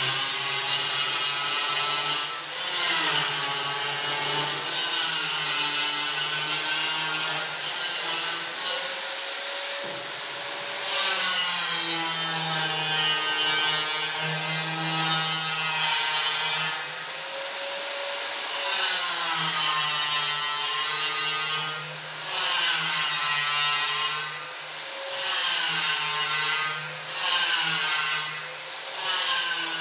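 Stick (SMAW) welding arc burning an E6013 electrode on a vertical seam in steel: a continuous crackling hiss with a buzzing tone that wavers up and down in pitch every few seconds as the arc length changes.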